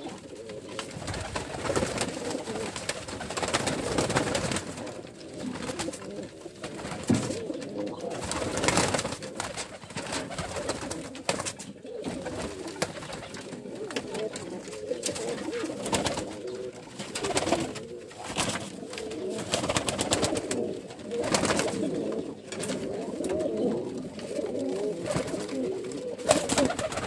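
Many domestic pigeons (Ödemiş dolap breed) cooing together in a small loft, with short bursts of wing flapping now and then.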